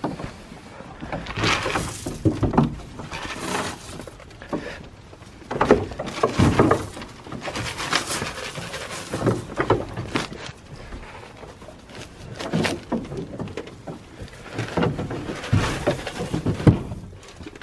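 Dry grain feed pouring from a plastic feed scoop into a wooden trough, rattling in repeated pours every second or two.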